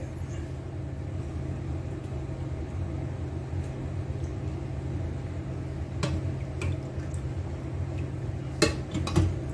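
A few light clicks and knocks of utensils against a dish, about six seconds in and again near the end, over a steady low hum.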